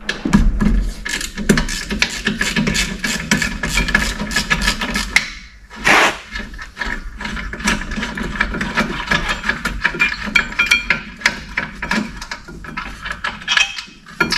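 Tool work on a rear brake caliper bracket's bolts: a dense run of rapid metallic clicks and rattles, with a louder clunk about six seconds in.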